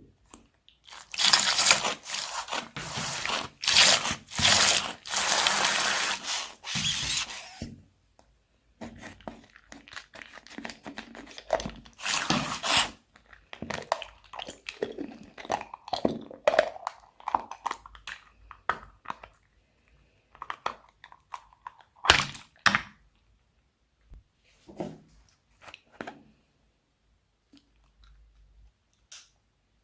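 Slime being worked by hand, crunching and crinkling loudly for the first eight seconds or so, then squishing in shorter, softer bursts that thin out to a few scattered pops near the end.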